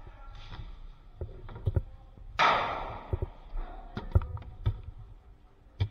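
Scattered knocks and taps of a player moving with an airsoft rifle in an indoor arena. A loud rushing burst about two and a half seconds in fades away over about a second.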